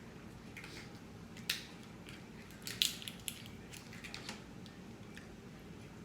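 Eating a sauce-drenched lobster tail close to the microphone: a string of sharp clicks and crackles from biting and handling the tail, the loudest about a second and a half in and just under three seconds in.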